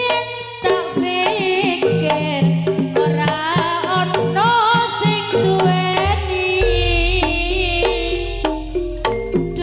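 Live Javanese jaranan music: hand-drum strokes under a wavering melodic lead, with a deep bass note that comes in about six seconds in and holds.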